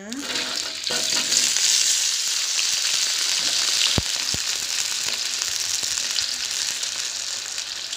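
Potato chunks sizzling as they fry in hot oil in a wok, the sizzle swelling about a second in as the potatoes go into the oil. Two sharp knocks about halfway through from the metal spatula against the wok.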